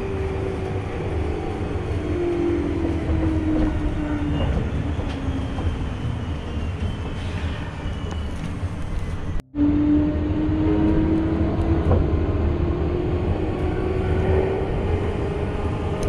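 Electric train running, heard from inside the carriage: a steady rumble with a motor whine that slides down in pitch. After a brief cut-out about halfway, the whine rises again.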